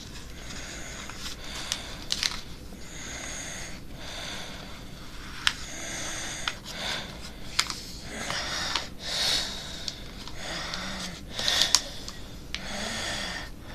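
Paper being folded and creased by hand: irregular rustling and crinkling, with a few sharp ticks as the folds are pressed down.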